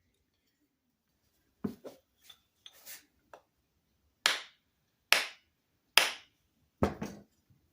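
A series of sharp knocks from hard objects: a few light clicks, then three loud strikes about a second apart and a quick double strike near the end.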